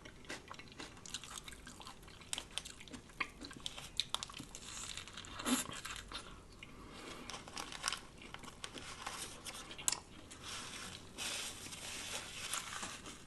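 Close-miked chewing of a lettuce-wrapped sub sandwich: soft, irregular crunches and wet mouth clicks, with a few louder crunches along the way.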